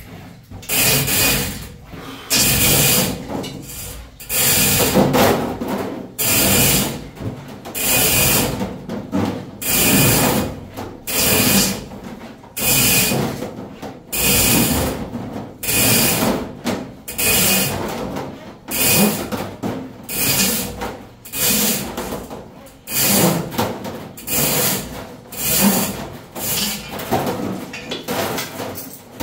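Steel sectional drain-cleaning cable for a Ridgid K-60 being pulled back out of a clogged drain hand over hand, scraping in short rhythmic pulls about one every second and a half.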